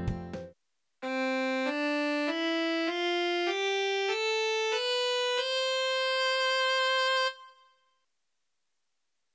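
Casio SA-81 mini keyboard's cello tone playing a rising one-octave scale of eight notes, the last note held about two seconds before it stops. A previous passage of keyboard music is cut off just before the scale begins.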